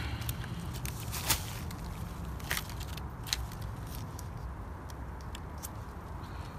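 Dry twigs and leaves crackling as cut oak branches on a brush pile are handled and stepped among, with three sharp snaps in the first few seconds, over a steady low rumble.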